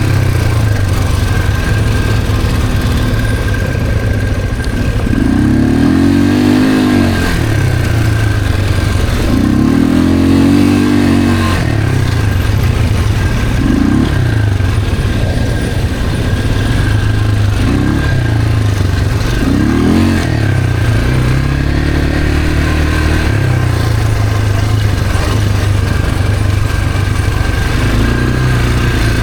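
ATV engine running under way, its pitch rising and falling again and again as the throttle is opened and eased off.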